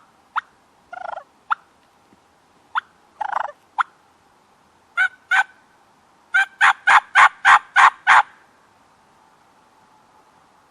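Hen turkey clucks and yelps, loud and close. There are a few sharp single clucks and short notes, then an even run of seven yelps at about four a second.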